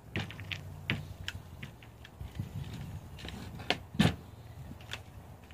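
Scattered light clicks and knocks over a faint low hum, with one louder knock about four seconds in.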